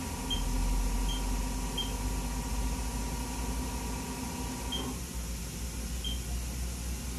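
Haas VF-3SS CNC vertical machining center running with a steady low hum and a steady whine, the whine stopping about five seconds in. Five short high beeps come from the machine's control panel.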